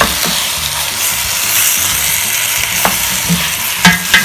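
Beef chunks sizzling as they brown in a pot on a gas burner, a steady hiss, with a few sharp knocks in the last second or so.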